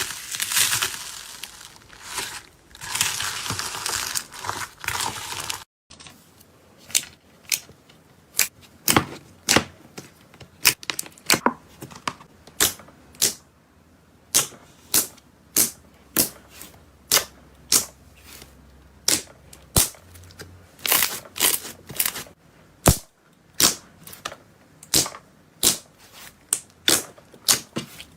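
Slime being squeezed and poked by hand. First comes a few seconds of dense crackling; then, after a sudden cut, a long run of sharp pops at about two a second, as air pockets burst in the slime.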